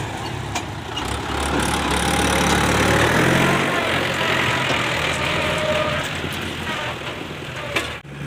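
Diesel engine of a backhoe loader running under working load, louder and busier for a couple of seconds in the middle, with a few sharp clicks and an abrupt cut near the end.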